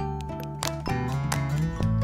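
Instrumental background music: short, quick notes over a sustained bass line.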